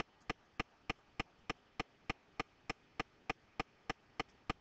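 Faint, very regular clicking, about three clicks a second, with a couple of small extra clicks near the end.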